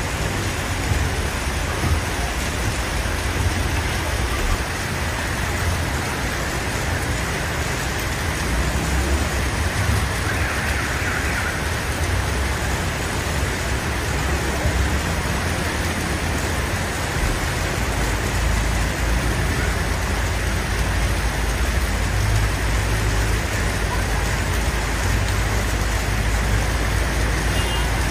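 Steady road traffic noise with vehicle engines and a constant low rumble.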